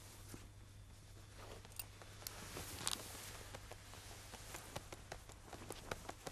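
Faint rustling with scattered light clicks and taps, one sharper click about three seconds in and the clicks coming more often near the end, over a low steady hum.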